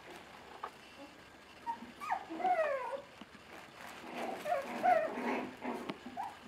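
Five-week-old Bolonka Zwetna puppies whimpering and yipping in two short bouts of high squeals that fall in pitch, about two seconds in and again around four to five seconds in.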